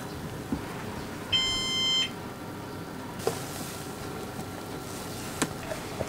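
A single electronic appliance beep, one steady tone lasting under a second, about a second in. Two light clicks follow later.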